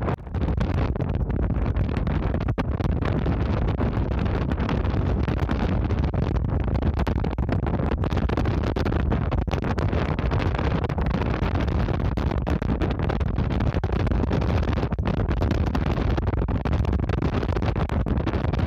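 Steady wind buffeting the microphone over the low, continuous rumble of a sightseeing icebreaker under way.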